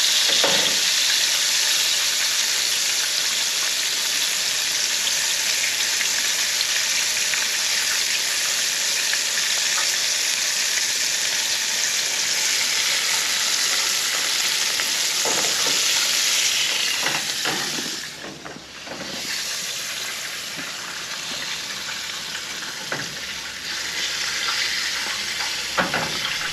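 Floured wild turkey breast pieces frying in vegetable oil in a pan, a steady dense sizzle. About eighteen seconds in it drops away sharply, and a softer sizzle goes on after.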